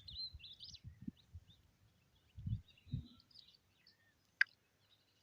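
Small birds chirping in short, scattered high calls, with a few low thuds about two and a half and three seconds in and one sharp click a little past four seconds in, the loudest sound.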